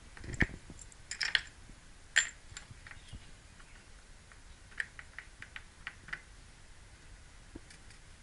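Metal tool bits clicking and knocking as they are set into a slotted wooden holder: a few sharp clicks in the first two seconds or so, then a quick run of lighter ticks around five to six seconds in.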